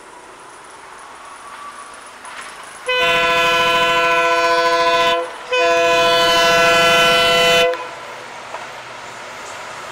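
A WDP4D diesel locomotive's air horn sounds two long blasts, each about two seconds with a short break between, starting about three seconds in. Beneath them the faint rumble of the approaching train grows steadily louder.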